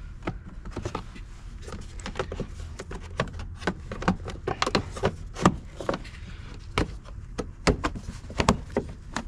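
Hard plastic air-intake duct in a Renault Espace 5 engine bay being worked back onto its fittings by hand: a run of irregular clicks, taps and knocks of plastic against plastic.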